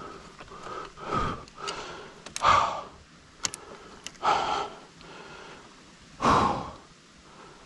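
A person breathing hard, with four loud, heavy breaths about two seconds apart between quieter ones.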